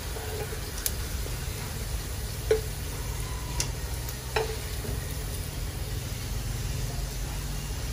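Hot oil sizzling faintly in a frying pan as batter-fried shrimp fritters are lifted out with cooking chopsticks, with four sharp clicks of the chopsticks against the pan in the first half, over a low steady hum.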